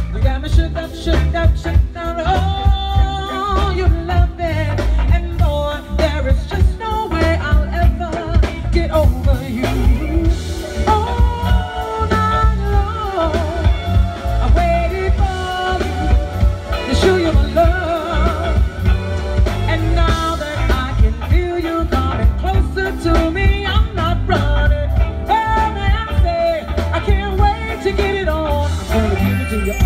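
A singer performing live with a band of electric guitar, keyboards, bass guitar and drums, amplified through a stage PA, with a strong pulsing bass.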